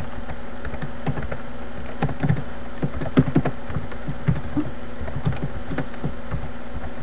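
Keystrokes on a computer keyboard, typing in scattered short runs with a cluster of clicks about two to three and a half seconds in, over a steady low hum.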